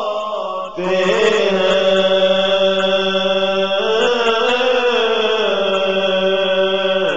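A man chanting an Urdu naat, Islamic devotional verse, in long held and gently wavering notes over a steady low drone. There is a short break for breath just before a second in, then a new phrase.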